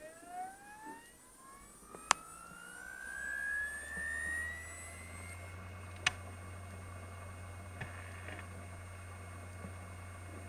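Samsung HD204UI 2 TB hard drive in an external USB enclosure spinning up on first access, with a whistling squeal that rises in pitch over several seconds and then holds steady over a low steady hum. There are two sharp clicks, about 2 s and 6 s in. The squeal on spin-up after sleep is the drive's fault.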